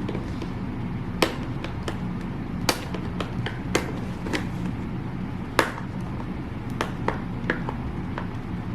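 Scattered sharp clicks and taps, about eight at irregular spacing, from handling a boxed camera microphone and its packaging, over a steady low hum.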